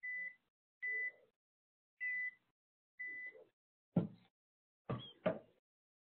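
Four short, steady high beeps from a TSL handheld RFID reader signalling tag reads as the tags are scanned, a little under a second apart. Then three sharp knocks, the loudest sounds, about four to five seconds in.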